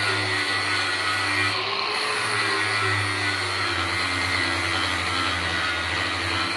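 An electric power tool motor running steadily, with a wavering pitch and a brief change in its high hiss about one and a half seconds in.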